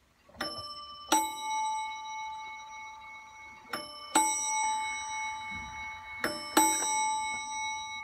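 Seth Thomas Hecla mantel clock movement chiming bim-bam on two bells: three pairs of strikes, a higher bell then a lower bell, each left ringing.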